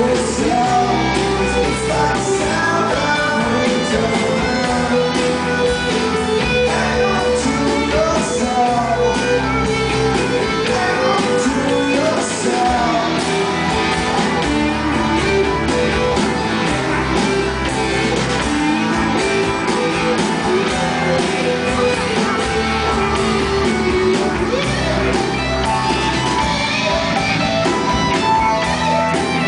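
Live rock band playing an instrumental passage, with guitar lines over a steady bass.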